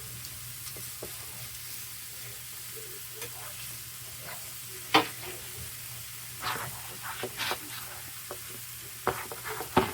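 Sausage patties sizzling in a frying pan, with a few sharp clicks and scrapes of a utensil against the pan about five seconds in, again a second or two later, and near the end.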